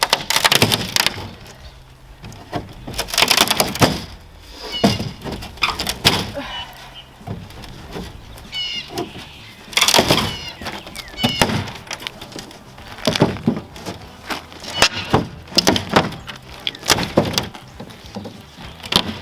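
Old wooden storage shed being broken apart by hand: repeated cracking, crunching and knocking of wood and roofing, uneven in rhythm, with a couple of high creaks about five and nine seconds in.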